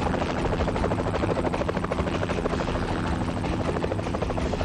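Helicopter running, its rotor blades chopping rapidly and evenly over a steady engine drone.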